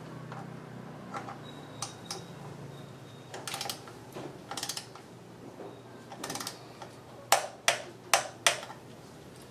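Hand wrenches on the transmission oil-pan bolts: short runs of rapid ratchet clicking, then four sharp, louder clicks about 0.4 s apart near the end, the click-type torque wrench breaking over at its set torque of 8 Nm.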